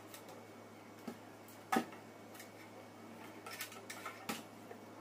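Scattered clicks and metallic clinks of parts and tools being handled while a PCP high-pressure air compressor is reassembled: one sharper knock a little under two seconds in, then a quick run of clicks a second or two later.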